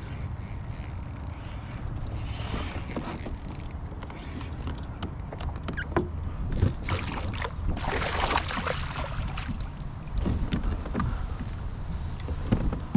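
Handling noise aboard a fishing kayak while a hooked fish is fought and landed: scattered knocks and clicks against the hull and tackle, over a low wind rumble. A longer rush of noise comes about eight seconds in.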